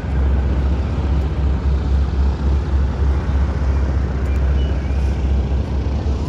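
Distant jet aircraft engine noise: a steady, deep rumble, with wind buffeting the microphone.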